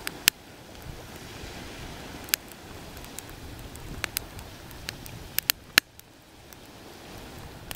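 Wood fire burning in a small folding bushbox stove: a steady low hiss of flame with sharp cracks and pops every second or so as the wood splits and throws sparks.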